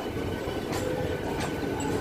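Passenger train running through the station: a steady rumble of wheels on rail, with a steady high tone above it and two sharp clicks from rail joints.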